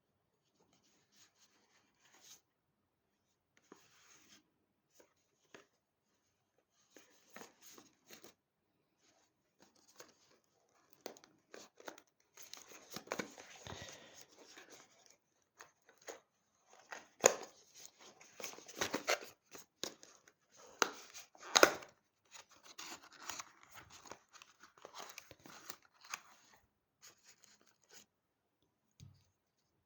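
Product packaging being opened and handled: irregular tearing, rustling and crinkling, with a few sharp clicks or knocks. It starts sparse and gets busier from about twelve seconds in, and the loudest knocks come about 17 and 21 seconds in.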